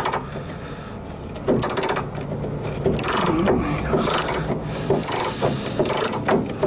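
Ratchet wrench clicking in several short bursts as it is worked back and forth on a stiff, rust-jammed bolt.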